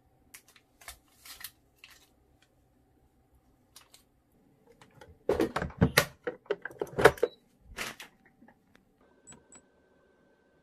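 Clunks and clicks of a Cuckoo electric pressure rice cooker: its inner pot being set in and the lid closed and locked by turning the handle, loudest and most clattering about halfway through. Near the end, a couple of short faint high beeps as the control panel buttons are pressed.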